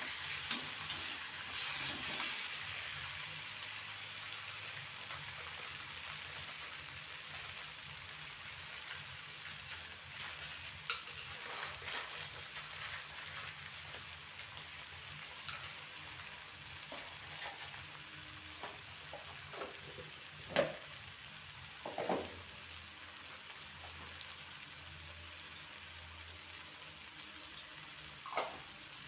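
Macaroni with vegetables and spices frying in a pan, with a steady sizzle. A few short knocks from stirring are scattered through it.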